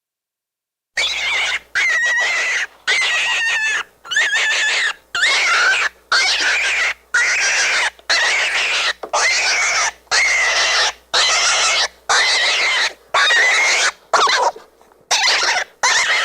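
New Zealand White rabbit screaming in distress: harsh, very high-pitched squeals repeated about once a second, starting about a second in.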